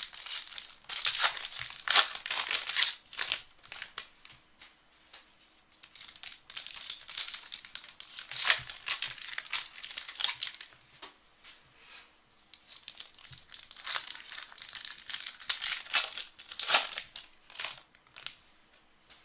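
Foil trading-card pack wrappers crinkling and tearing as packs are ripped open, in irregular bursts with short pauses.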